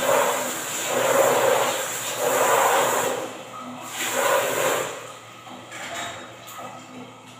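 Rough rubbing or scrubbing strokes, about one a second, each a short swish; they die down about five seconds in.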